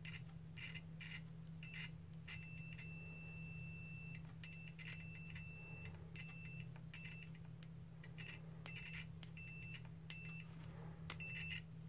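HoldPeak HP-90EPC multimeter's continuity buzzer beeping as the probe tips are touched together. It comes in irregular short and longer high beeps with crackly clicks between them as contact makes and breaks. The crackle is static that the reviewer puts down to this price range of meter.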